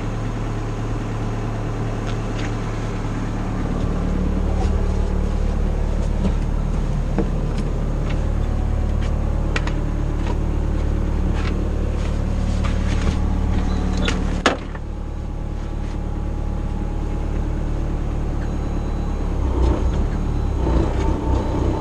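Excavator engine running steadily, building up a little about four seconds in. There is a single sharp click or knock about two-thirds of the way through.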